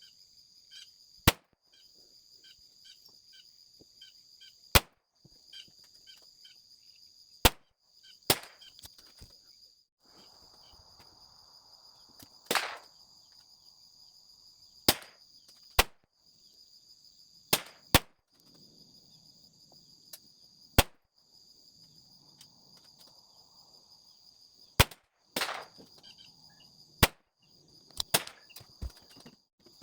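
Single .22LR rimfire pistol shots from a Smith & Wesson Victory, about fifteen sharp cracks at uneven intervals of one to three seconds, a few in quick pairs. Under them runs a steady high insect buzz.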